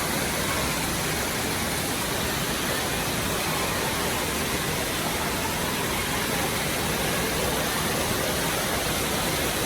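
Steady rush of falling and splashing water in a water park.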